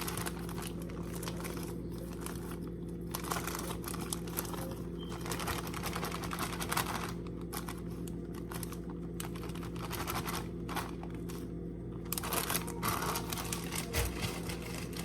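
Crinkling and rustling with light irregular clicks as salad is worked out of its container and onto a wrap, over a steady low electrical hum.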